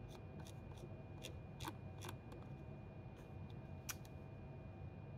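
Scattered light clicks of a computer being worked by hand while searching a web page, about ten irregular clicks with the sharpest near four seconds in. Under them, a faint steady hum with a thin high tone.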